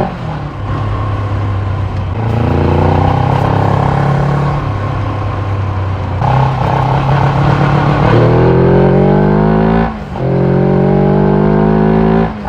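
Carburetted motorcycle engine's exhaust pulling under throttle. The pitch climbs steadily, then drops abruptly, twice in the second half.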